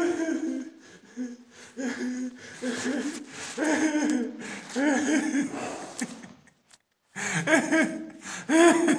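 A person laughing hard in breathless, wheezy bursts, with a short break about two-thirds of the way through before the laughter starts again.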